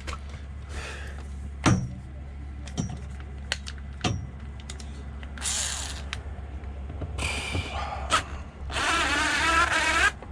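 A few sharp knocks and taps of tools and parts being handled, then a power drill whining in a short run near the end, its pitch wavering. A steady low hum sits underneath.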